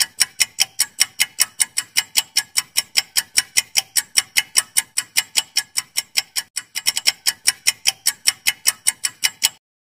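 Clock-style ticking sound effect of a quiz countdown timer: sharp, even ticks about five a second, stopping abruptly shortly before the end.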